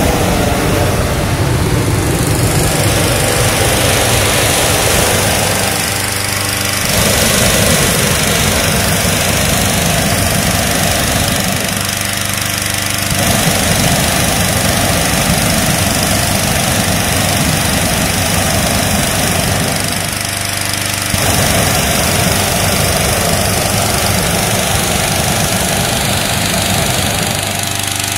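Petrol-engined inflator fan running steadily, blowing cold air into a hot-air balloon envelope during cold inflation: a steady engine hum under a constant rush of air, dipping slightly a few times.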